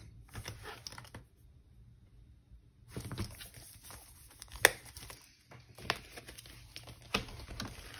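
Crinkling and rustling as a cash budget binder and its pouches of paper money are handled, broken by a short silence after about a second. Several sharp clicks stand out, the loudest about halfway through.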